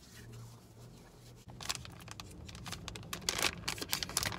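Small plastic packet crinkling and being torn open in the fingers; the crinkling starts about a second and a half in and grows louder near the end.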